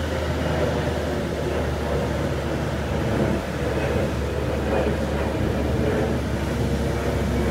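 Boat travel lift's engine running steadily as the hoist drives along, carrying a boat in its slings.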